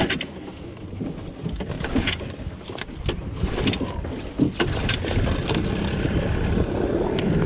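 Small fishing boat's outboard motor running at idle, pushing the boat slowly along, with scattered knocks on top.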